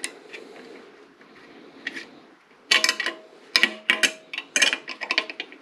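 Hand ratchet wrench clicking as it tightens a bolt through a motorcycle's rear fender: a few faint ticks at first, then three quick bursts of clicks about a second apart from the middle on.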